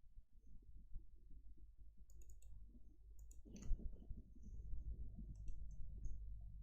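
Computer mouse clicking in scattered short runs over a low steady hum.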